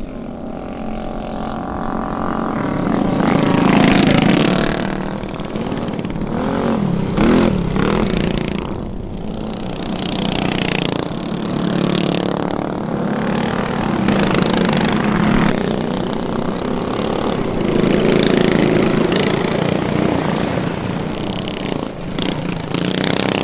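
Minibike engines running hard and revving as several bikes race on a dirt track. The pitch rises and falls and the sound swells as the bikes accelerate and pass.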